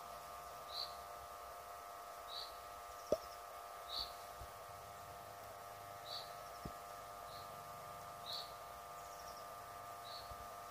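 Electronic siren loudspeakers humming faintly after the warning signal, a steady chord of several tones. A bird chirps over it every second or two, and there is a small click about three seconds in.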